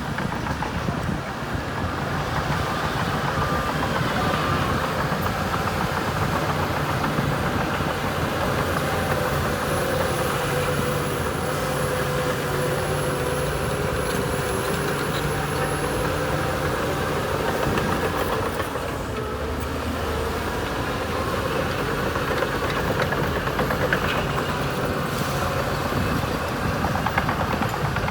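Diesel engine of heavy earthmoving machinery running steadily, with a faint whine that rises and falls through the middle.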